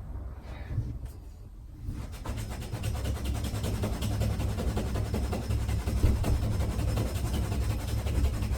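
Tap water running steadily into a sink while a shaving brush is rinsed out under it, the flow getting stronger about two seconds in.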